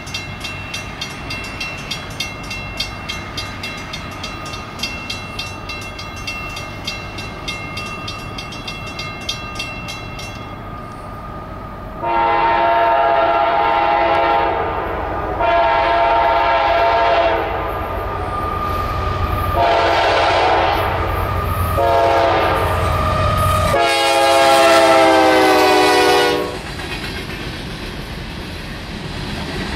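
CSX GE AC44CW diesel locomotive's air horn sounding several long blasts and a short one as the train approaches. The chord drops in pitch on the last blast as the locomotive passes. The rumble of empty hopper cars rolling by follows near the end, and before the horn there is a regular ticking about three times a second.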